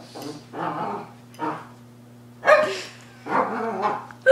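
A dog making pig-like noises: about five short, irregular snorting bursts, each under half a second.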